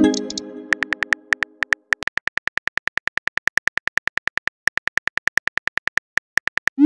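Simulated phone keyboard typing: a rapid, even stream of key clicks, about six a second. It opens with a short chime that rings out for about a second and ends with a quick rising swoosh of a message being sent.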